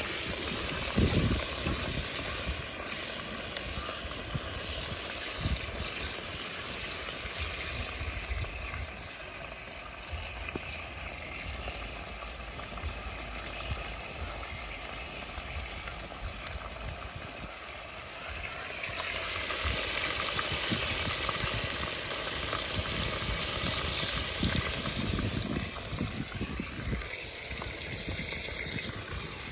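Chicken pieces frying in oil in an aluminium pot over a wood fire, with a steady sizzle that gets louder about two-thirds of the way through.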